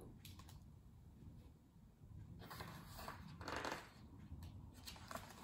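Soft paper rustle of a picture-book page being turned, about two and a half to four seconds in, in an otherwise quiet room.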